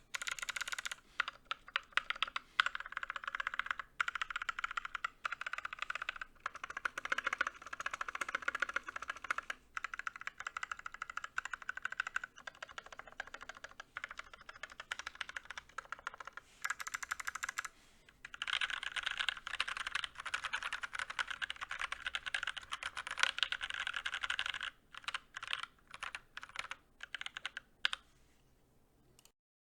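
Typing on a GK61 60% mechanical keyboard with lubed and filmed T1 tactile switches, an aluminum plate and a plastic case. It is fast, continuous typing with a couple of short pauses, slowing to separate single keystrokes near the end and then stopping.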